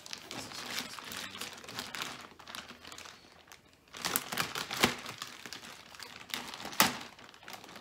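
Clear plastic bag crinkling and rustling as it is worked open at its tied top, with denser crackling about four to five seconds in and one sharp, loud crackle near the end.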